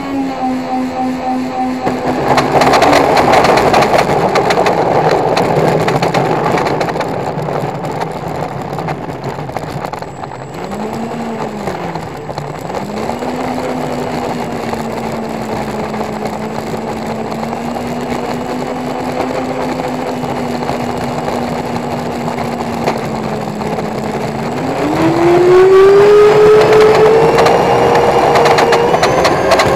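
Dynam Turbo Jet RC plane's electric motor running, heard from inside the cockpit: a steady whine with a strong harmonic drone that the owner blames on imbalance. About two seconds in, a loud rough rattle of the landing gear rolling on pavement joins it for several seconds. The pitch dips briefly, then holds steady, and near the end it climbs quickly as the throttle is opened.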